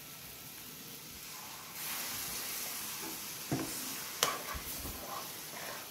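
Water added to a hot pan of bitter gourd curry, with a steady sizzling hiss that grows louder about two seconds in. A steel spoon stirs the curry and clinks twice against the metal pan.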